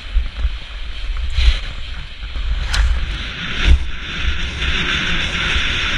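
Wind buffeting a helmet-mounted camera's microphone while skis scrape and hiss over packed snow at speed. The hiss grows stronger in the second half. There is one sharp click about three seconds in.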